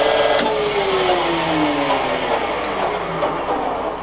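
Colchester Student 1800 centre lathe's geared headstock whining at top speed. A sharp click comes about half a second in, then the whine falls steadily in pitch as the spindle runs down.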